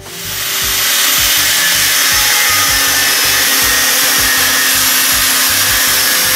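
Electric angle grinder grinding a rusty steel frame beam, a loud, steady high hiss that builds up over about the first second and then holds.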